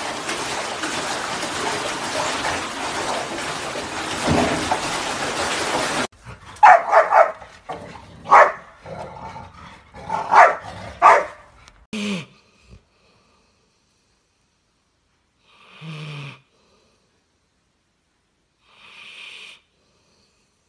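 Water running steadily into a bathtub holding two Labrador retrievers. This gives way about six seconds in to a series of short, loud barks from two black Labradors play-fighting. Near the end come two soft snoring breaths from a sleeping yellow Labrador.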